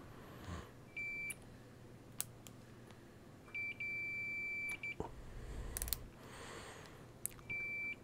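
Fluke 115 multimeter's continuity beeper sounding three times as the probes find a connection between the rotary switch's common and its contacts: a short beep about a second in, a longer one of about a second near the middle, and a short one near the end. A few light clicks fall between the beeps.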